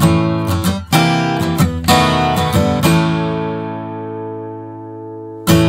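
Acoustic guitar strummed in chords, about three strums a second, then a chord left to ring and slowly fade before one more strum near the end.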